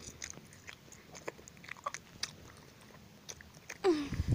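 Close-up handling noise of plush toys being moved against the phone: scattered soft crackles and clicks, with a short falling tone and a heavy bump near the end.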